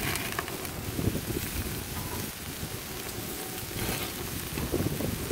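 Marinated sirloin steaks sizzling on a gas grill as a steady hiss, with wind buffeting the microphone as an uneven low rumble.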